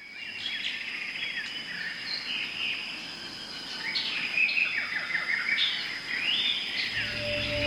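Birds chirping and calling in quick, sweeping notes over a steady high insect-like whine.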